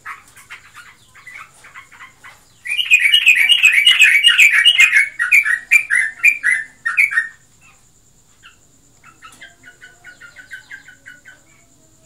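Yellow-vented bulbul (trucukan) chattering: a loud run of rapid, repeated notes for about four and a half seconds, then a softer run of quick notes near the end, over a faint steady high whine. The owner cannot tell whether the outburst is breeding excitement or full song.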